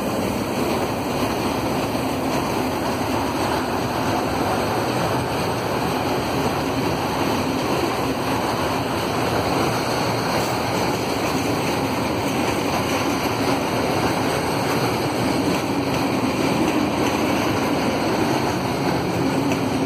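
A freight train of wagons loaded with logs rolling past, a steady rumble and rush of wheels on the rails, pulled out of the station by a pair of Dv12 diesel-hydraulic locomotives.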